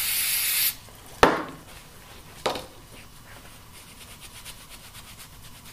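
Berkebile Gum Cutter aerosol solvent spraying in a loud hiss that stops under a second in, then two sharp knocks, then a rag rubbing faintly on a metal motor part to clean off grease.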